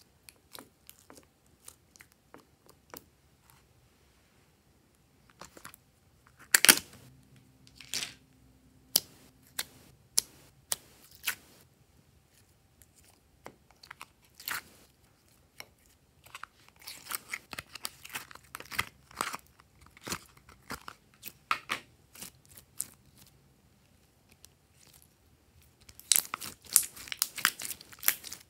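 Gold glossy slime being handled and squeezed by hand, giving sticky clicks and pops: a few scattered at first, then dense crackling runs in the middle and again near the end.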